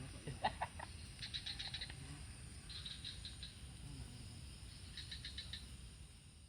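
Short trains of rapid, high chirping calls from a small animal, repeated several times a second or so apart, over a steady low rumble.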